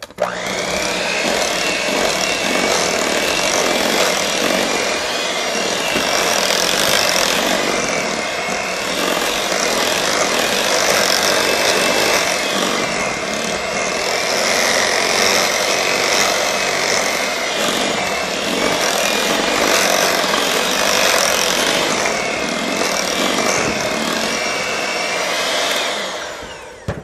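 Electric hand mixer running, its beaters working through a thick batter of pumpkin puree and softened cream cheese in a glass bowl; a steady motor whine that starts at once and dies away near the end as it is switched off.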